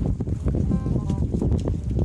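Light, quick comic background music: short stepped melody notes over plucked, clip-clop-like strokes, with a dense low rumble underneath.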